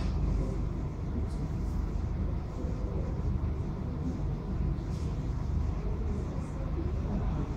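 Steady low rumble of background noise, with a few faint ticks.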